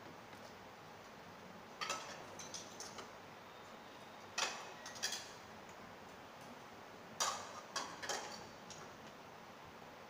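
Scattered sharp clinks of dishes and spoons against the monks' alms bowls as food is put into them, in small clusters of two or three, some ringing briefly, over a low steady room hiss.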